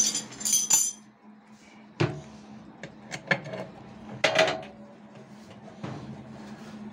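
Metal clinks and knocks of a spanner being fitted onto and turned on the centre nut of a top-load washing machine's tub hub, tightening it onto the shaft. There are several separate sharp knocks, the loudest about four seconds in.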